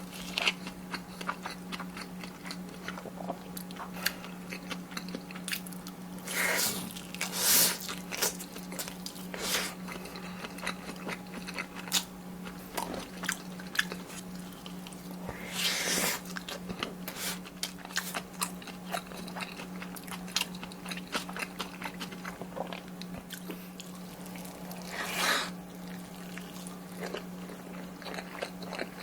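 Close-miked chewing of a mouthful of kimchi fried rice: a steady run of small wet mouth clicks, with a few louder noisy bursts of eating sound.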